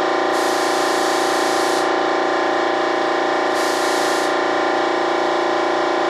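Paint spray gun hissing in two bursts, the first about a second and a half long and the second under a second, over a steady machine drone.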